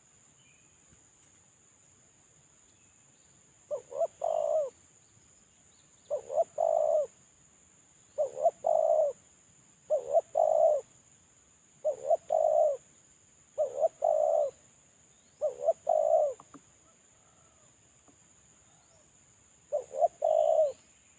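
Spotted dove (terkukur) cooing: eight phrases, each two short notes followed by a longer drawn-out coo, repeated about every two seconds with a longer pause before the last. It is the call of a decoy bird, used as a lure call to draw in wild doves.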